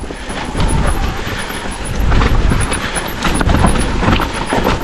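Electric mountain bike riding over a rough trail: tyre noise and irregular clattering and rattling from the bike, with heavy low rumble.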